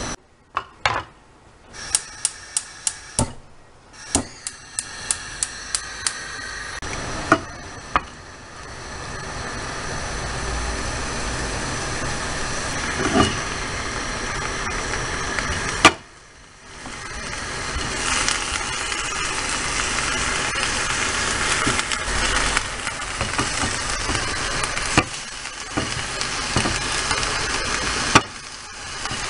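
Chicken breast strips sizzling in a frying pan, a steady hiss that builds up and grows stronger in the second half. Near the start there is a quick run of about a dozen sharp clicks in two groups, and a few single knocks come later.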